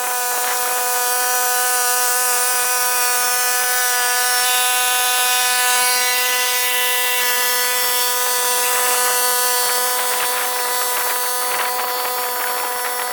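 A small motor running with a steady, high-pitched whine and a hiss over it.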